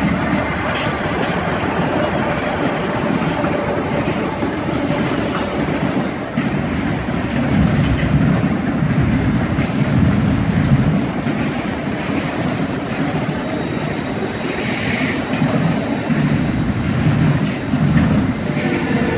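A BNSF freight train passing: two diesel-electric locomotives go by, then a string of enclosed autorack cars, their wheels rumbling and clacking steadily on the rails. A brief high wheel squeal comes about fifteen seconds in.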